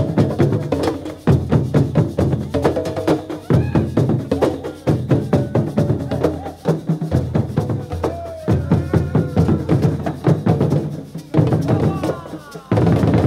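Lively percussion music of many quick drum strikes, with voices calling over it.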